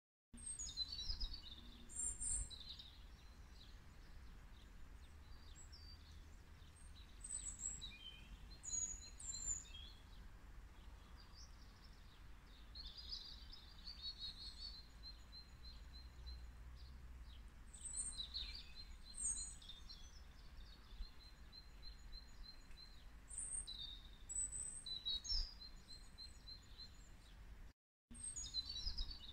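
Songbirds singing: scattered high chirps and several rapid, evenly pulsed trills, over a steady low rumble. The sound drops out briefly near the end.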